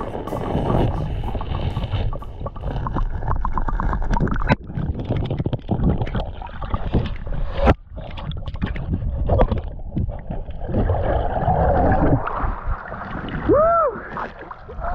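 Water sloshing and bubbling around a diver's action camera, underwater and breaking the surface, with frequent knocks and scrapes against the camera.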